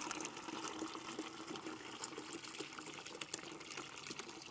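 Water trickling and splashing as it is poured from one plastic bucket into another, draining the rinse water off a load of wet cloth diapers.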